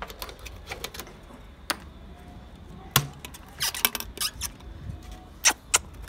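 Irregular sharp clicks and knocks of a wooden aviary door with metal hasps being handled as spinach leaves are pushed inside, the loudest knocks about three seconds in and again near the end.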